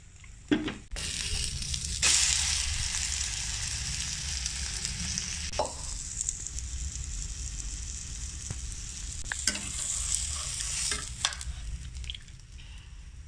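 Vegetable omelette sizzling in oil in a non-stick frying pan. The sizzle jumps louder about two seconds in as the omelette is turned over onto its raw side, with a few knocks of a utensil against the pan, and stops near the end as the omelette comes out of the pan.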